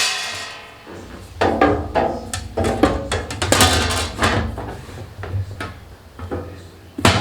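Background music with a steady low bass and a rhythmic beat, with one sharp knock near the end.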